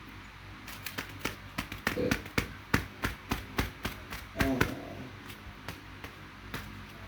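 A quick, uneven run of about twenty sharp impacts, densest and loudest from about one to five seconds in and thinning out after. Two short voice-like sounds come among them, near two seconds and again near four and a half seconds.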